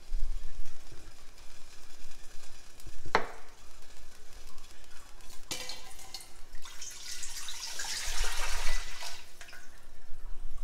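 Water poured from a glass pitcher into a stainless steel pot, splashing more heavily from about six and a half to nine and a half seconds in. Two sharp knocks, about three seconds in and again about five and a half.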